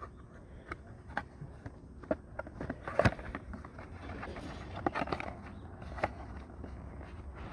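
Handling noise from a small cardboard parts box being handled and opened: scattered light clicks and knocks, with a louder knock about three seconds in and some rustling a little later.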